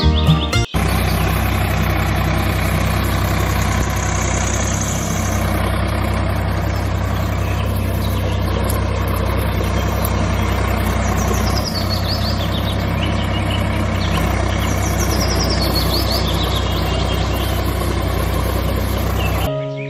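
Tractor engine running steadily at low revs, a constant low hum, after music cuts off under a second in; a few bird chirps sound faintly behind it.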